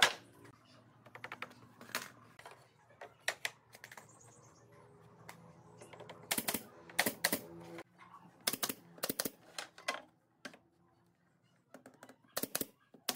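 Pneumatic nail gun firing nails into pine boards: sharp snapping shots, several in quick succession, mixed with the knock and clatter of loose wooden boards being handled. A faint steady hum underneath stops about eight seconds in.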